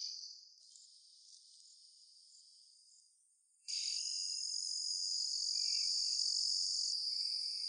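Insects chirring steadily in a high band. The sound drops out to near silence about half a second in and returns after about three seconds.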